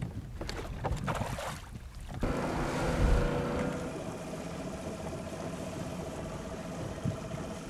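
A fishing boat under way at low speed: its motor hums steadily with a thin whine, over water and wind noise. For the first two seconds there are only wind noise and a few knocks before the sound changes.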